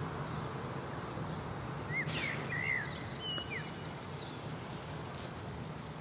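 Outdoor ambience: a steady low background rumble, with a few short bird chirps about two to three and a half seconds in.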